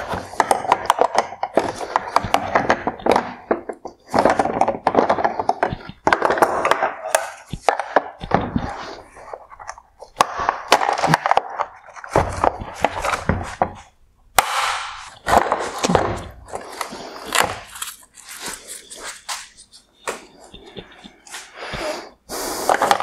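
Plastic headlight housing and manual adjuster being forced apart with a long metal tool: repeated scraping, creaking and clicking of hard plastic, with a sharp crack about two-thirds of the way through as the adjuster gives way.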